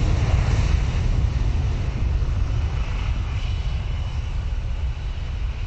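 Jet airliner's engines at takeoff power, a dense low rumbling noise that slowly fades as the plane departs, with its jet blast buffeting the microphone.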